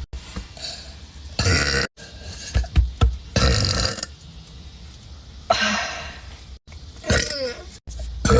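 A woman letting out a string of gassy burps, about four separate loud ones with short pauses between them.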